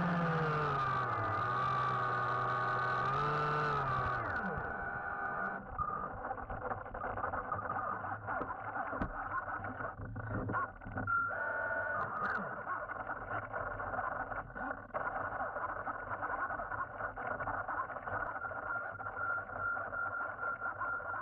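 RC submarine's electric motor whining, its pitch sliding up and down with the throttle. About four seconds in the sound turns muffled, and a steady high whine with a low rumble and scattered small clicks carries on, heard by the camera underwater.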